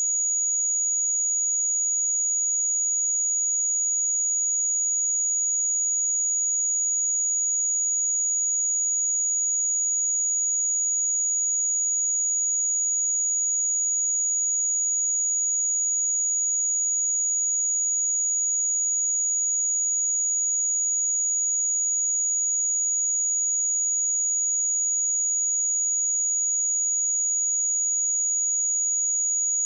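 A steady, high-pitched 6791 Hz sine-wave test tone: one pure tone held at a constant level.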